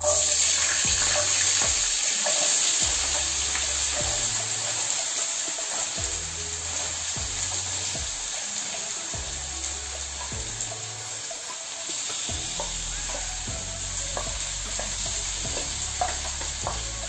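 Diced raw potatoes dropping into hot olive oil in a frying pan, breaking at once into a loud sizzle that eases a little over the following seconds. Scattered taps and scrapes of a wooden spoon and bowl against the pan sound over the sizzle.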